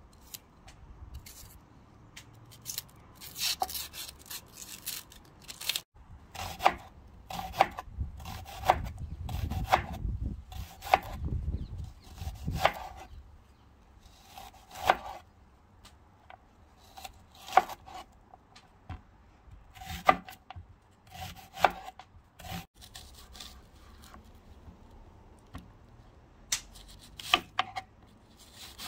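Kitchen knife slicing onions on a wooden cutting board: sharp, irregular knocks of the blade meeting the board, roughly one a second, with softer scraping in between and a pause of a few seconds near the end.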